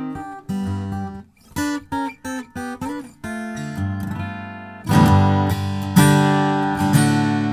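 Taylor 224ce-UA DLX acoustic guitar, a Grand Auditorium with a solid Urban Ash top, being played. Separate picked notes and short phrases come first, then full strummed chords ring out from about five seconds in.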